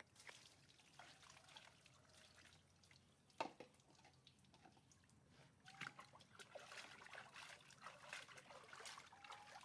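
Faint trickling and dripping of water, with scattered small ticks and one sharp click about three and a half seconds in.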